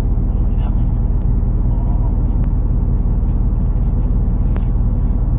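A vehicle engine idling steadily, a constant low hum, with a few faint ticks over it.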